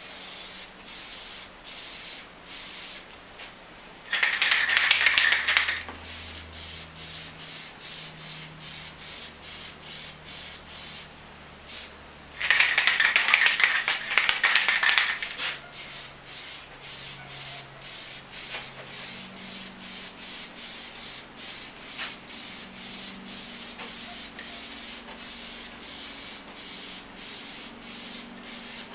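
Aerosol can of Plasti Dip spraying onto a plastic outboard cowl in two long hissing bursts, about four seconds in and again about twelve seconds in. Faint short pulses at about two a second fill the gaps.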